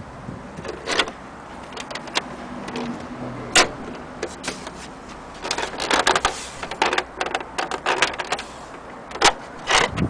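Irregular plastic clicks and knocks from hands handling a Brother AX-430 electronic typewriter's body and cover, bunched in a quick flurry about halfway through.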